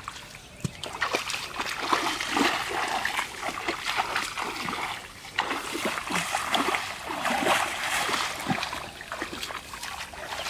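Repeated splashing of muddy water as a metal bucket scoops it up from a shallow ditch and flings it out. The ditch is being bailed dry to catch the fish. The splashing starts about a second in.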